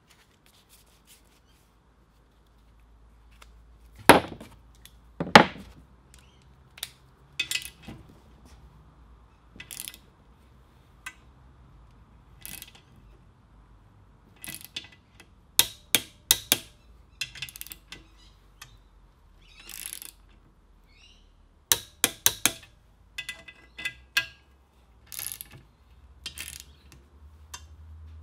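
Click-type torque wrench ratcheting and clicking in short irregular runs as bolts on a belt grinder are tightened, with light metal clinks of tools. Two sharp knocks about four and five seconds in are the loudest sounds.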